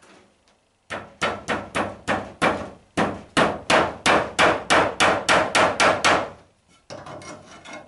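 Hammer driving a nail into a timber roof batten: about eighteen quick, evenly spaced blows, three to four a second, then a brief pause and a lighter flurry of knocks near the end.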